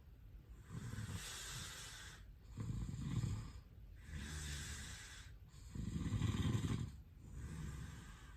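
A sleeping person snoring: rattling snores alternate with hissing breaths in a slow breathing rhythm, and the two loudest snores come about three and six seconds in.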